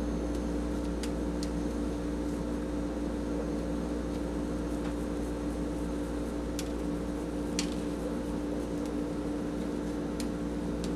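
Steady steady hum from an appliance or electrical equipment, one held tone over a low drone, with a few faint clicks scattered through it.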